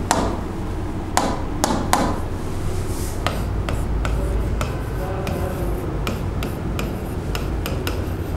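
Stylus tapping and scratching on the glass of an interactive display board while an equation is written: a dozen or so sharp clicks, the loudest in the first two seconds. A steady low electrical hum runs underneath.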